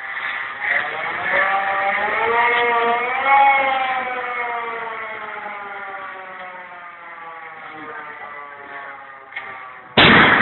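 Demolition warning siren wailing in one long rise to a peak about three seconds in, then a slow fall. Near the end a sudden loud blast: the explosive charge going off to bring down the industrial chimney.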